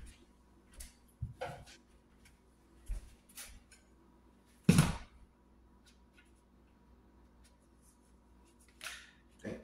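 Scattered light knocks and clicks of kitchen handling, with one sharp knock about five seconds in, as a plastic-wrapped tray of chicken tenders is fetched and set down on a plastic cutting board.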